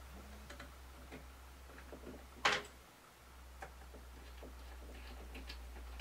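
Faint scattered clicks and taps of a hard drive being set onto a metal drive sled and shifted to line up its screw holes, with one sharper click about two and a half seconds in, over a steady low hum.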